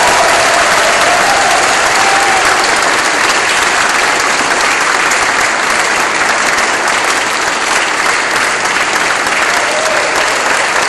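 A congregation applauding steadily, with a few faint voices over the clapping.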